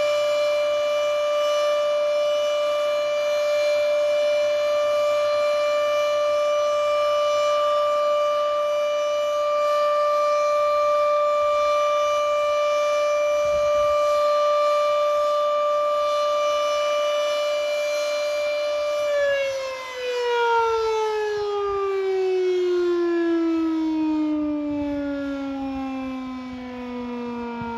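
Outdoor warning siren sounding a steady tone for about nineteen seconds, then winding down, its pitch falling steadily to the end.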